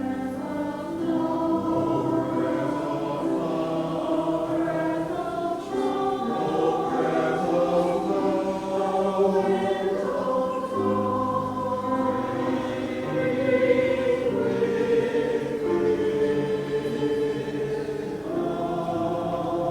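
Church choir singing, several voices holding chords that shift every second or two.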